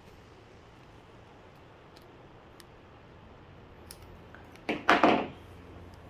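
Hands working an electrical wire into a jumper-cable clip: a few faint clicks, then a brief loud burst of handling noise about five seconds in.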